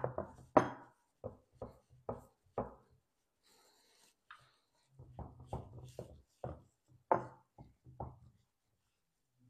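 Hands patting and pressing crumbly shortbread crust dough into a baking dish, making a run of soft taps about twice a second, with a pause of a second or two in the middle.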